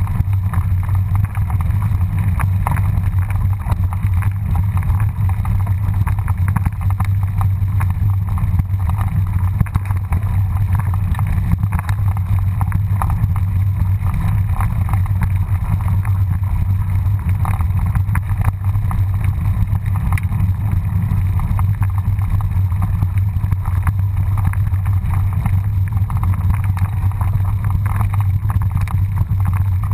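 Wind buffeting a helmet-mounted action camera's microphone during a mountain-bike descent of a rough dirt trail: a steady low rumble, with many small clicks and rattles from the tyres and bike over loose stones.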